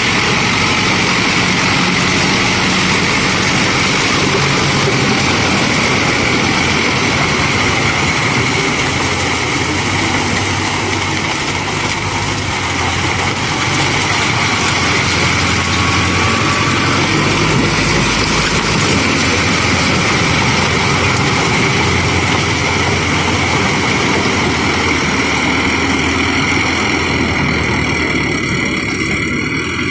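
Mahindra Arjun Novo 755 DI 4WD tractor's diesel engine running steadily under load, driving a rear rotavator through flooded paddy mud while puddling.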